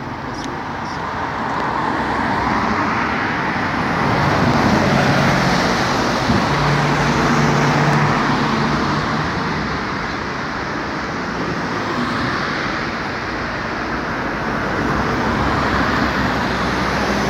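Road traffic passing close by: cars driving past on the street with a steady rush of tyre and engine noise that swells and fades as they go by. One engine's low hum stands out for a few seconds in the middle.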